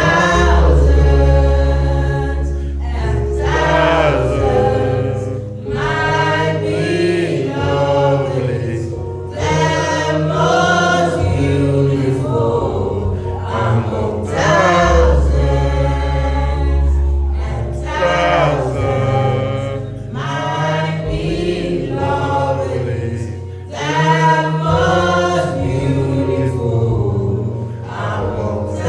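Choir singing a gospel song over music with long held bass notes.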